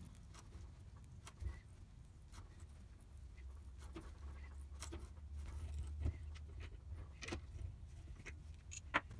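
Hand tap in a bar tap wrench cutting a 3/8-16 thread in a metal block held in a bench vise: faint scattered clicks and small metallic clinks as the wrench is turned, with a sharper click near the end. A faint low hum runs underneath.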